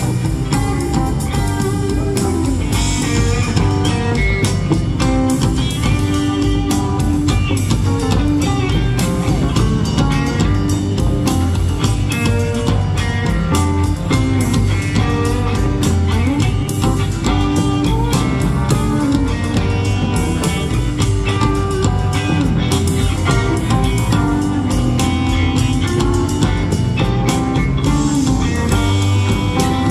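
Live rock band playing an instrumental jam with no singing: electric guitar over a drum kit, with pedal steel guitar.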